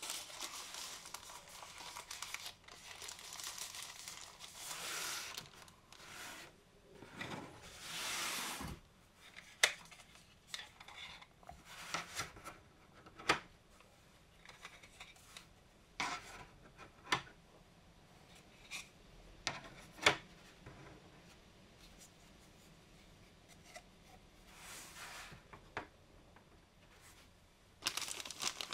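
Plastic bag rustling for the first several seconds, then a series of separate sharp clicks and taps as hard plastic lids are handled and set down on a table. Plastic wrap crinkles near the end.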